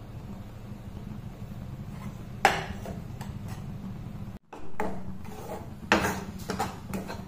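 Steel spoon scraping and clinking against a non-stick kadai while stirring dry gram flour as it roasts: a sharp clink about two and a half seconds in, then a run of quicker knocks and scrapes near the end, over a steady low hum.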